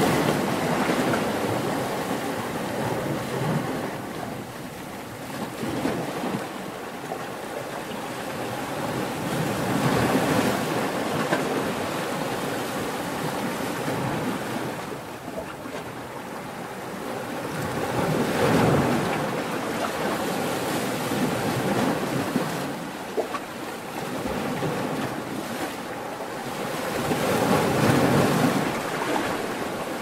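Ocean surf: waves breaking and washing in, the rushing noise swelling and fading four times, about every nine seconds.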